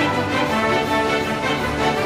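Background music: held notes over a steady pulse.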